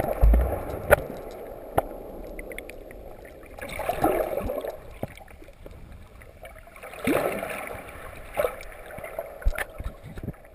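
Underwater surf heard through a GoPro's waterproof housing: a churning wash of water that swells up about four and seven seconds in, with scattered sharp clicks and knocks.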